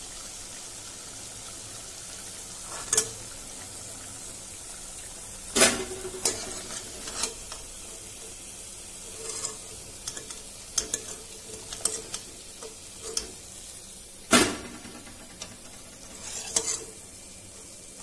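Mysore bondas sizzling steadily as they deep-fry in hot oil. A metal slotted spatula knocks and scrapes against the frying pan several times as the bondas are turned and lifted out, with the sharpest knocks about 3, 6 and 14 seconds in.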